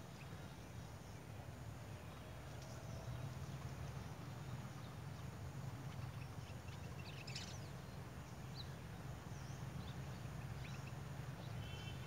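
Steady low rumble of forest ambience with a few faint, short bird chirps, the clearest about seven seconds in.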